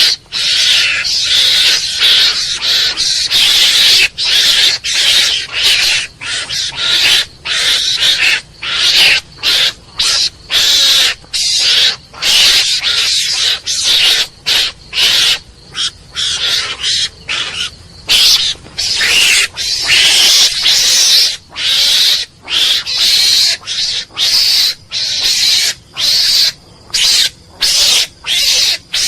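Mongoose calling: a long series of harsh, hissing bursts in quick succession, one or two a second, each lasting under a second.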